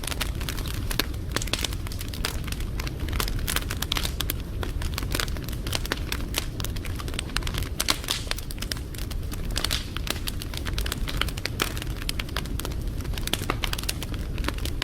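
Wood fire crackling steadily, with many small irregular pops and snaps over a low rumble of the flames.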